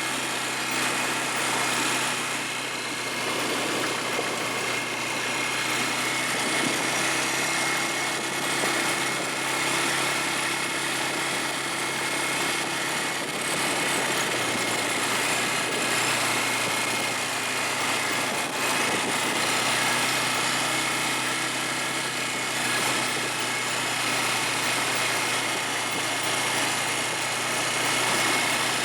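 ATV (quad bike) engine running steadily, with a broad hiss of the ride over it.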